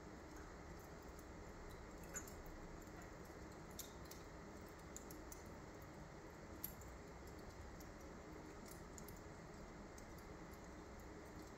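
Wood fire burned down to glowing embers on a fireplace grate, faintly crackling with a handful of sharp pops over a faint steady hiss; the loudest pops come a couple of seconds in and about two-thirds of the way through.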